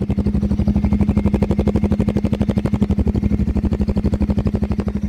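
Bajaj Pulsar 125 BS6's single-cylinder engine idling at about 1000 rpm, heard close at the exhaust: a steady, even beat of exhaust pulses.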